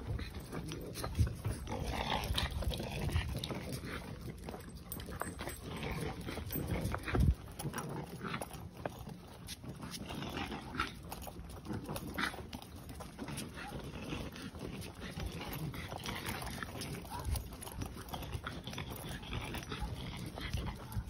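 Several leashed dogs out on a walk: dog breathing and snuffling, with irregular small clicks and rustles from paws, tags and leashes over a low rumble of walking and handling noise, and one sharper knock about seven seconds in.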